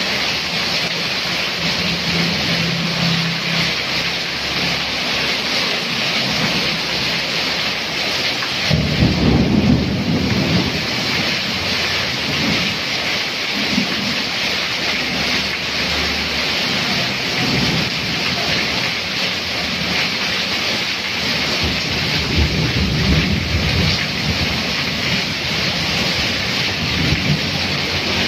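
Heavy downpour: a steady hiss of rain on the road and roof, with water streaming off the roof edge, and low rumbles underneath, the strongest about nine seconds in.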